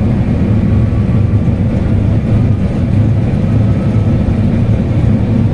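Boeing 737NG flight deck noise during the takeoff roll: a loud, steady rumble of the engines at takeoff thrust mixed with the wheels running on the runway.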